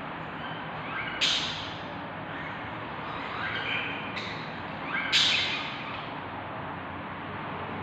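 Budgerigar nestlings calling inside a nest box: two loud, harsh squawks, about a second in and about five seconds in, with fainter cheeps between them, over a steady hiss.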